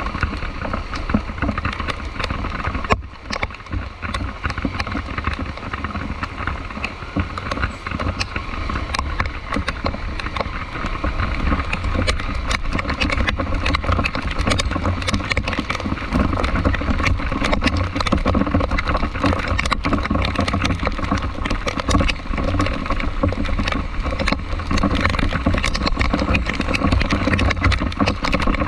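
Steady road traffic in the rain: a vehicle engine's low rumble and tyre and road noise, with many small ticks throughout and a brief drop in level about three seconds in.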